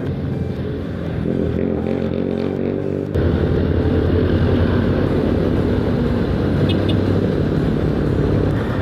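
Motorcycle engine running under way, picked up by a helmet-mounted lapel mic behind a fur windscreen, with wind rush over it. About three seconds in, the engine gets louder.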